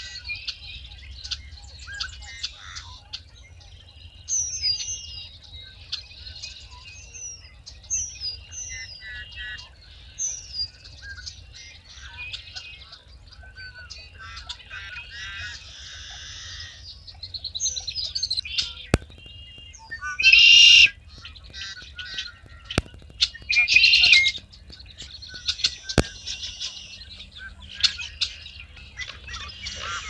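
Dawn chorus of marsh birds picked up by a parabolic dish microphone: many overlapping chirps and slurred whistled calls, with two loud, harsh, buzzy calls about 21 and 24 seconds in. A steady low rumble runs underneath.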